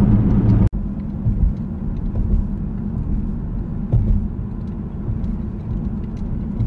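Steady low rumble of a car's engine and tyres, heard from inside the cabin. It breaks off for an instant less than a second in, then goes on somewhat quieter with a few faint knocks.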